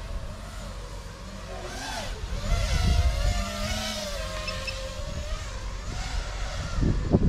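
FPV drone's motors and propellers whining, the pitch rising and falling with the throttle as it flies, over a low rumble. It grows louder about two and a half seconds in.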